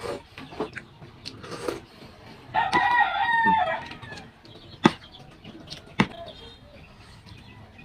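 A rooster crowing once, a pitched call of a little over a second starting about two and a half seconds in. Scattered clicks and knocks around it, with two sharp clicks in the second half.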